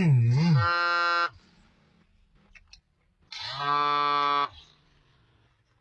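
Cow mooing: a wavering moo at the start, a short steady one right after it, and a longer steady moo about three and a half seconds in.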